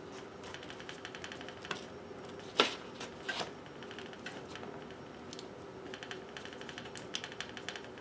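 Hands handling stiff tulle netting on a sheet of paper: bouts of quick crinkly rustling, with a sharp tap about two and a half seconds in and a lighter one just after. A faint steady hum runs underneath.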